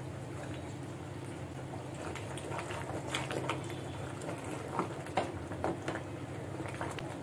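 Thin lentil-and-rice khichuri simmering in a pan while a wooden dal ghutni is twirled through it, giving a wet churning and bubbling sound. From about two and a half seconds in, short sharp splats and clicks come through, over a steady low hum.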